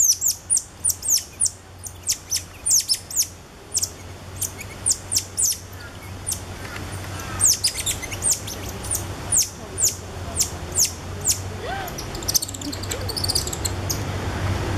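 Cotton-top tamarins giving rapid, high-pitched chirps, each a short falling sweep, several a second. The chirps thin out after about eleven seconds. A low, steady hum runs underneath.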